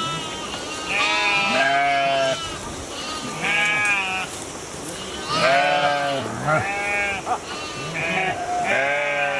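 A flock of sheep bleating: several animals calling one after another, with about seven or eight wavering calls, some overlapping.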